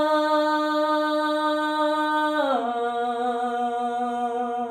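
A singer holding a long, steady wordless note in a raag-style vocalise, then gliding down to a lower note about halfway and holding it.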